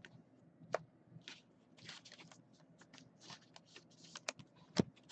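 Trading cards being handled and flipped through: faint slides and rustles of card stock, with a few sharp clicks, the loudest near the end.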